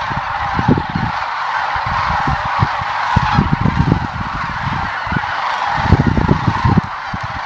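A large mixed flock of cranes and geese calling in flight: a dense, unbroken chorus of many overlapping honks and calls. Gusts of low wind rumble on the microphone come and go underneath.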